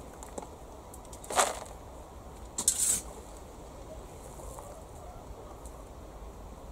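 A metal shovel digging into a bag of compost mixed with clay balls: two short scrapes and crunches, about a second and a half in and again just under three seconds in.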